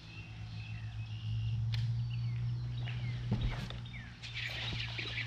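Bass boat's electric trolling motor humming steadily, a little louder from about a second in, while birds chirp and whistle in short notes. A few light clicks.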